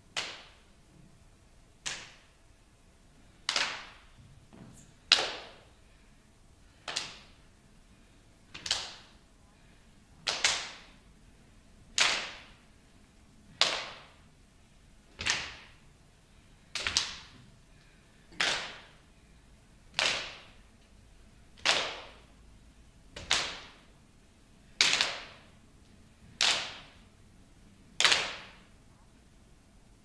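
Sharp swishing hits repeating evenly about every one and a half seconds, each fading within half a second, a few with a short rush swelling into them; a faint steady hum underneath.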